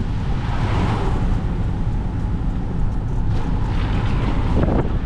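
Car driving, with a steady low road rumble and wind buffeting the microphone; the noise swells briefly twice, about a second in and again near the end.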